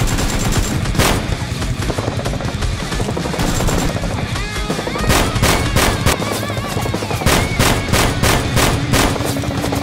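Dramatic action music with a steady beat, overlaid with dubbed-in gunfire sound effects: a single shot about a second in, then a run of rapid shots from about five seconds in.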